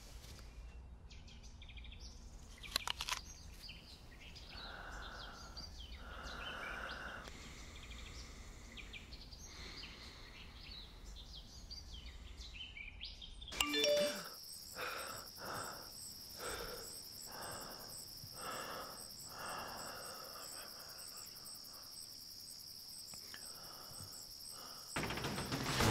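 Quiet outdoor ambience with small birds chirping now and then. About halfway through the background changes abruptly to a steady high-pitched tone with soft pulses about once a second.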